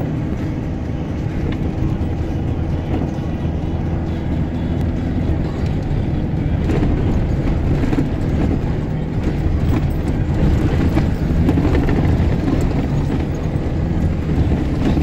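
Vehicle engine running with the tyres rolling over a rough dirt road, heard from inside the cabin, with occasional short knocks and rattles from the bumps.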